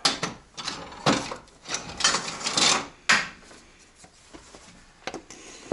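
Knocks and scraping as a piston and connecting rod are worked out of the bore of a Toyota 3SZ-VE cast-iron engine block. A string of sharp knocks and a longer scrape fill the first three seconds, then a few light clicks follow.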